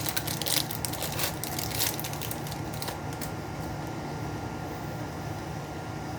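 Trading cards and their pack wrapping being handled: crinkling and rustling for about the first three seconds, then only a steady low hum.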